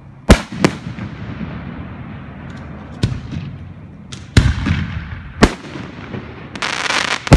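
Aerial firework shells bursting overhead: about six sharp bangs spaced irregularly, the first two close together. Near the end a loud hiss runs for most of a second before a final bang.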